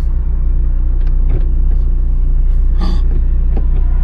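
Steady low engine and road rumble inside the cabin of a moving Volkswagen Jetta, with a few brief clicks.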